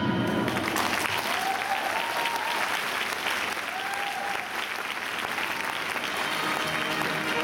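Orchestral paso doble music breaks off just after the start, and an audience applauds, with a couple of brief calls from the crowd rising over the clapping.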